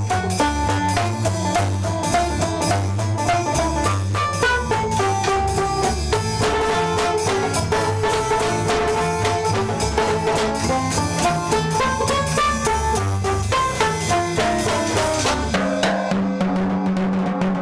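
Small old-time jazz band playing a lively tune: clarinet lead over banjo, upright bass and drum kit. Near the end the melody drops out, leaving a held low note under the drum beats.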